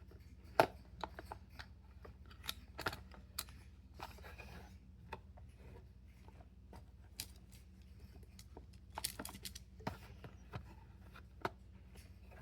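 Small fidget toys being handled and sorted by hand: irregular clicks and taps of light objects set down and picked up, with a short rustle about four seconds in and a quick run of clicks near the end, over a low steady hum.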